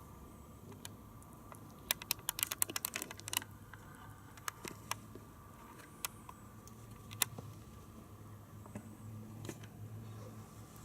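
A quick run of small sharp clicks, about a dozen in a second and a half, then a few scattered single ticks, over a faint steady hum.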